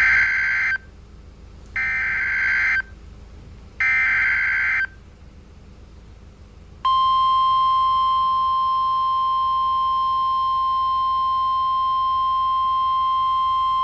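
NOAA Weather Radio Emergency Alert System signal: three one-second bursts of SAME digital header data, a harsh buzzy screech, each about a second apart, encoding a flash flood warning. About seven seconds in, the steady 1050 Hz weather radio warning alarm tone starts and holds.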